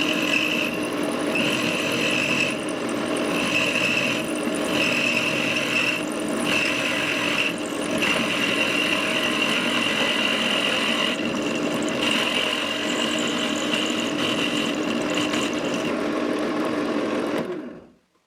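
Drill press running with a large ball-cutting bead drill bit boring into a block of wood: a steady mechanical whine with a high tone over it, stopping abruptly near the end.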